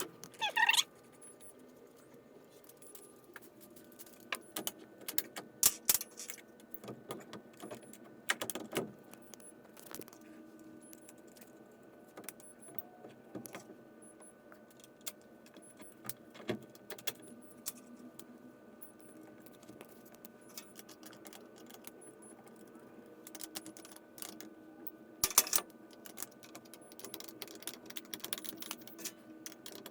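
Scattered metallic clinks and clatters of hand tools and torsion-spring hardware being handled, with a few louder clatters about a second in and about three-quarters of the way through, over a faint steady hum.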